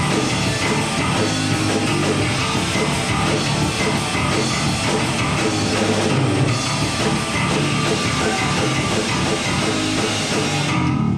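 Live rock band playing loud: drum kit and electric guitars together, stopping right at the very end.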